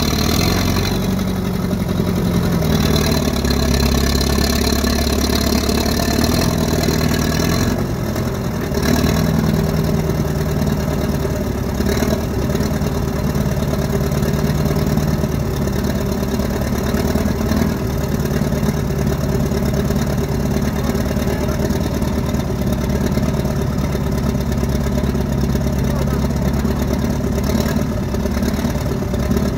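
Case 1000D crawler dozer's engine running steadily, its pitch shifting about eight seconds in.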